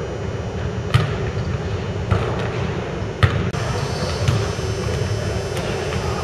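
Basketball bouncing on a hardwood gym floor: several separate, irregularly spaced bounces that echo in the large hall, over a steady background hiss of the gym. The sound breaks off briefly about halfway through.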